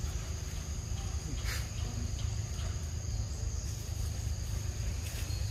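Steady high-pitched drone of insects over a low rumble, with a faint brief rustle about one and a half seconds in.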